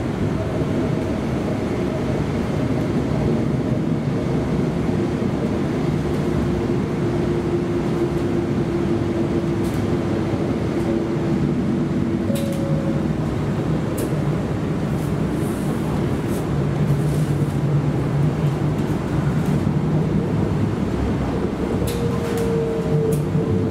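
A TriMet MAX light rail car running along the track, heard from inside the car. The wheels rumble steadily on the rails under a hum that shifts pitch a few times, and there are a few sharp clicks, two near the middle and one near the end.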